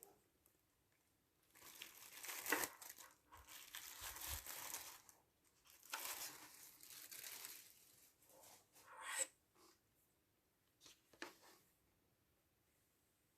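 Packaging being handled, crinkling and rustling in two longer spells, then a few short rustles and a sharper crackle near the middle.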